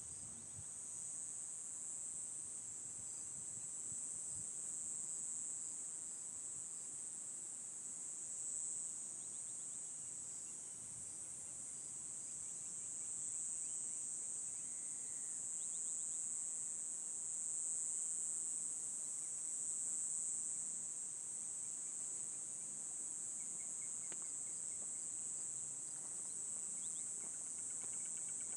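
Steady, high-pitched chorus of insects trilling without a break, with a few faint bird chirps here and there.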